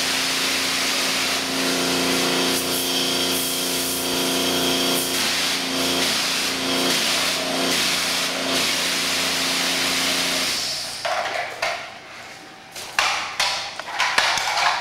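Car wash pressure-washer wand spraying a high-pressure jet: a steady hiss with a steady hum under it, for about ten seconds before it stops. Then a run of short sharp knocks near the end.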